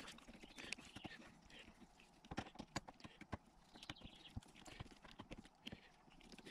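Faint, irregular small metal clicks and taps as small screws are threaded into the top plate of a 7.3 Powerstroke HEUI diesel injector.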